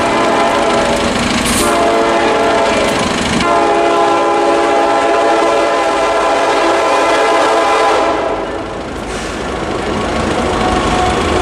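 Diesel freight locomotive's air horn sounding a multi-note chord in long blasts. One blast breaks off about three and a half seconds in, the next fades about eight seconds in, and the horn is fainter after that.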